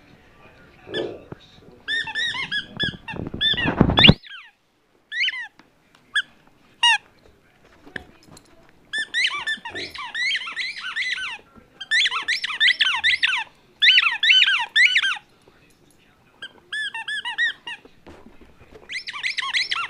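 Red bone-shaped Hartz squeaky toy being chewed by a husky, giving rapid runs of high squeaks about a second long with short pauses between, and a few single squeaks. A brief, loud low sound about four seconds in.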